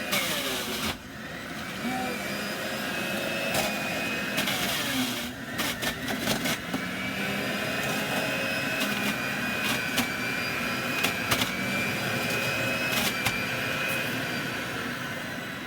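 Electric juicer running on carrots: a steady motor whine with scattered sharp knocks and clicks as the carrots are fed in and ground. The sound dips briefly about a second in and again about five seconds in.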